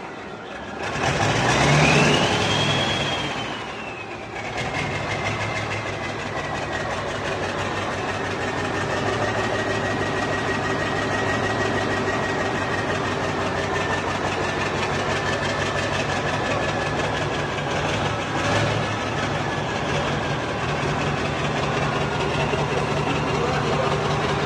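Scania LK truck's diesel engine revved once about two seconds in, its whine rising and falling, then running steadily at idle with a high whine that slowly drops in pitch.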